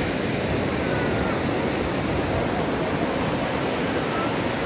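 Ocean surf washing steadily onto a sandy beach, an even rushing noise, with faint distant voices.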